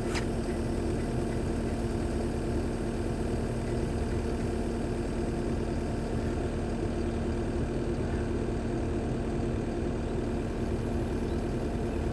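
Skid steer engine idling steadily, with a short click right at the start.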